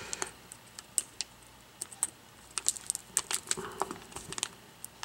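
Light, irregular ticks and clicks of an X-Acto hobby knife's blade tip and fingernails picking at flimsy adhesive tape over a laptop screen's ribbon-cable connector.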